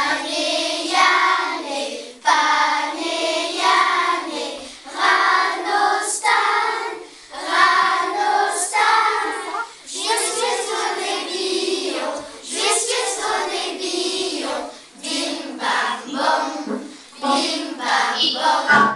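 A group of schoolchildren singing a song together, in phrases of a second or two with short breaks between them.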